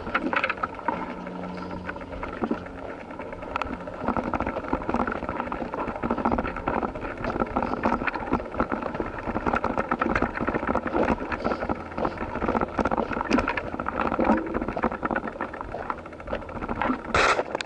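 Handlebar camera rattling and clattering in its loose holder as an e-bike rolls along a paved path, with tyre and wind noise underneath. There is a low steady hum in the first few seconds and a short hiss near the end.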